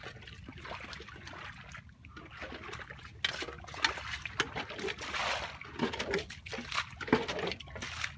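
Shallow muddy water and mud splashing and sloshing as hands and a bowl scoop through it, with trickling water in between; it grows louder and busier from about three seconds in.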